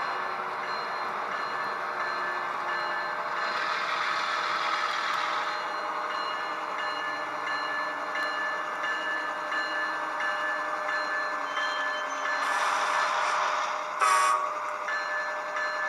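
Diesel locomotive sounds played by the LokSound decoder of an HO-scale GE ES44AC model through its small speaker: a steady engine hum with several held whining tones, a hiss about twelve seconds in and a short, loud burst about fourteen seconds in.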